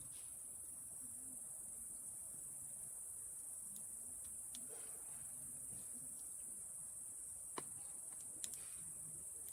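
Campfire embers crackling softly, with two sharp pops near the end, over a steady high-pitched hum.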